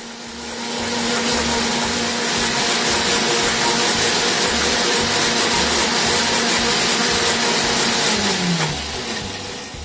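KitchenAid K400 blender's 1200-watt motor running at high speed on the smoothie program, blending frozen mango and orange into a thick smoothie. It builds up over the first second, runs steadily, then winds down near the end with a falling pitch as the program slows.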